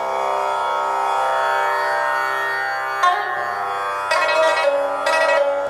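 Instrumental background music over a steady held drone, with a few louder melody notes about three, four and five seconds in.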